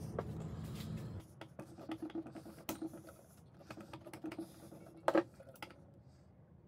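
Small metal clicks and scrapes as a steel bar is worked out of an old cast-iron sewing machine head with pliers, with one sharper click about five seconds in. A low steady hum runs under the first second and then stops.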